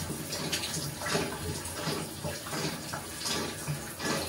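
Shower running behind a drawn curtain, a steady spray of water falling into a bathtub.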